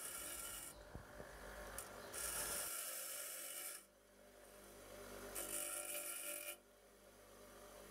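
Bench grinder wheel grinding a bevel onto the tip of a high-carbon steel bit blank: a grinding hiss comes three times as the blank is pressed to the wheel and lifted off, with the grinder's motor humming steadily in between.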